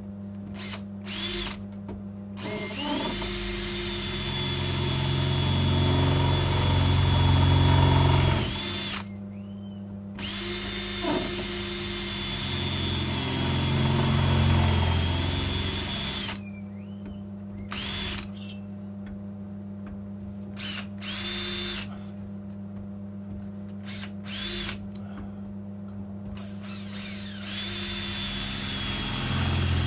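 Electric drill boring 6 mm holes through the Mini's sheet-steel heel board for plug welds, in two long runs of several seconds each and a few short bursts, its motor whining at a steady high pitch. A steady low hum sits underneath.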